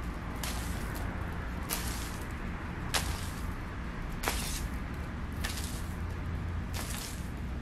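Cat inside a carpet tunnel making brief scratchy rustles about once every second and a bit, over a steady low hum.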